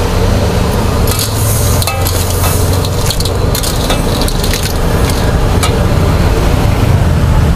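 Seafood in sauce sizzling in a steel wok while a steel spatula stirs it, scraping and clinking against the pan, louder hissing for a couple of seconds about a second in. A steady low rumble runs underneath.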